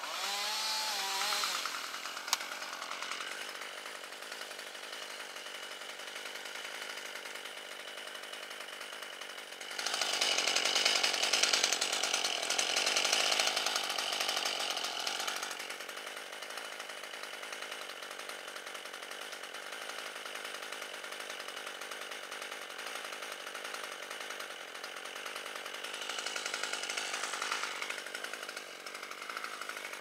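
A two-stroke chainsaw running steadily at idle, its engine speeding up twice: a burst of about five seconds around ten seconds in, and a shorter one near the end.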